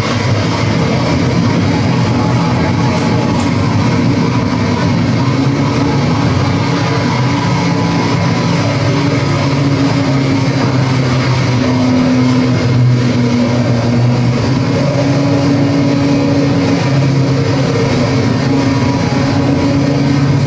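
Live noise music: a loud, unbroken wall of harsh noise over low droning tones that shift in pitch every few seconds.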